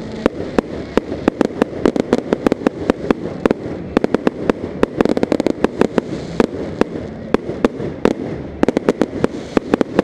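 Aerial fireworks bursting in a dense barrage: a rapid string of sharp bangs, several a second, over a continuous crackle.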